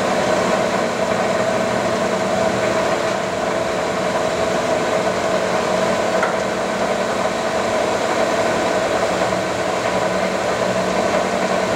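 Metal lathe running steadily at the slow spindle speed set for thread cutting: an even mechanical hum and whine from the motor and gear train.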